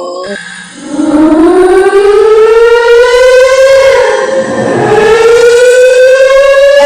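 A siren winding up: a loud wail that rises slowly in pitch, sags about four seconds in, then climbs again.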